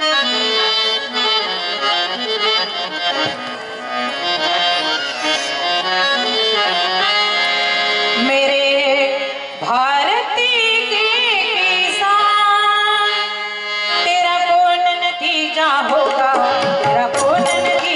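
Devotional bhajan music: a harmonium plays the melody over tabla, and a woman's solo singing voice comes in about eight seconds in.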